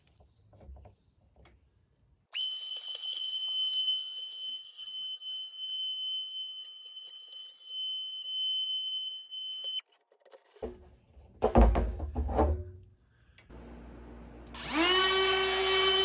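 DeWalt compact router running at full speed with a steady high whine as it cuts into the top of a polyethylene barrel, then shutting off suddenly. A few seconds of low rumble and loud knocks follow, then a router motor starts up, its whine rising in pitch and settling steady near the end.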